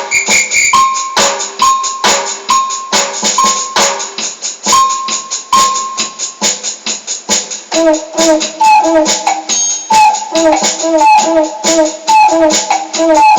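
Amateurish jam on an electronic keyboard with shaken percussion: sharp rattling strikes keep a rough steady beat while single keyboard notes repeat. About eight seconds in, the keyboard switches to a quicker repeating figure of lower notes.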